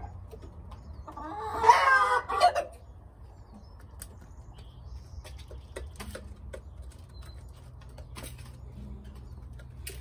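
Backyard chickens: one chicken gives a loud, broken squawking call about a second in, lasting just over a second. After it come faint scattered ticks of the flock pecking grain from a pan.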